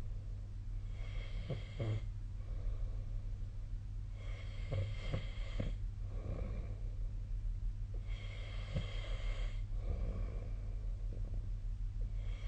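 A sleeping person snoring, one snore roughly every four seconds, four in all, over a steady low hum.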